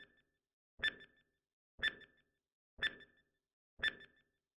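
Countdown timer sound effect: a short electronic beep with a low knock under it, once a second, ticking down to zero.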